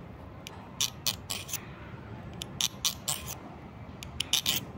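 A small hand file scraping along the steel blade of a folding knife: about a dozen short rasping strokes, a few at a time with short pauses between, sharpening the edge.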